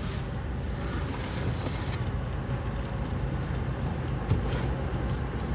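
Car engine idling with a steady low rumble, heard from inside the stopped car's cabin.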